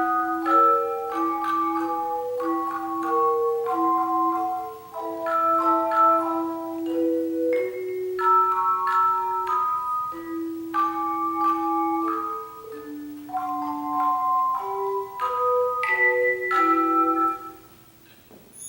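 A tone chime ensemble playing a melody over held lower notes, each chime struck and ringing with a pure, sustained tone. Near the end the piece closes on a final chord that fades away.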